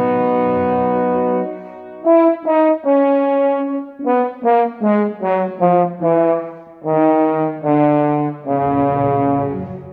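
Solo bass trombone playing an orchestral excerpt: a long held note, then a run of short detached notes, then a few longer held notes near the end.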